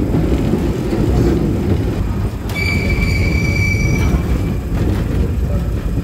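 Santa Teresa electric tram rumbling along its rails, heard from aboard the open car, with a high steady wheel squeal rising out of the rumble about two and a half seconds in and lasting about a second and a half.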